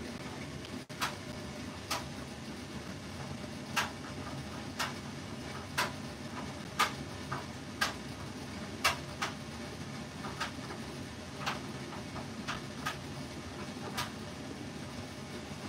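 Light, sharp clicks and taps, roughly one a second and uneven in loudness, as a blender jug and a utensil knock against a plastic popsicle mould while peach purée is poured in. A steady low hum runs underneath.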